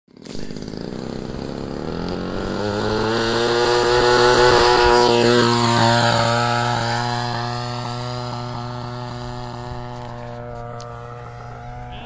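Single-cylinder two-stroke petrol engine (RCGF 26cc) of a Seagull Sea Fury RC model plane. It runs at rising pitch as it takes off, is loudest as it passes close by about four to six seconds in, then fades as it flies away.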